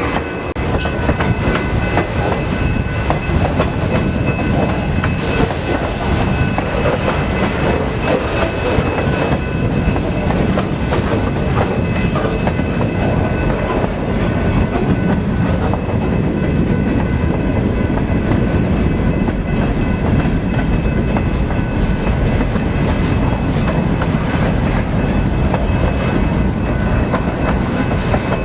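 Freight cars of the Canadian Pacific road freight 252 rolling past: a steady, continuous rumble of steel wheels with clickety-clack over the rail joints.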